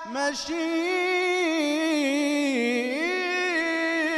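A male munshid's solo voice chanting an Islamic devotional praise song (inshad) without instruments. After a short break at the start, he holds one long, ornamented note that wavers and slides down, then back up, around the middle.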